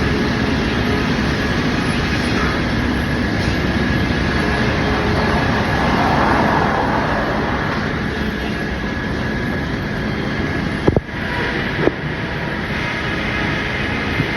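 Steady, loud running noise of machinery with a faint steady whine, broken by two sharp knocks about a second apart near the end.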